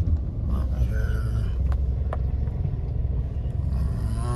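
Steady low rumble of a car's engine and tyres, heard from inside the moving car's cabin.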